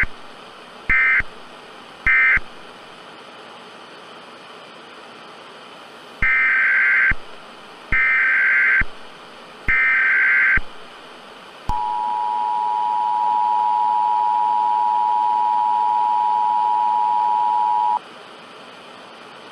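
EAS alert signalling: the tail of one short screechy SAME data burst and two more, the end-of-message code, then three longer data bursts, the header of the next alert. Then comes the two-tone EAS attention signal, a steady held tone that cuts off suddenly after about six seconds.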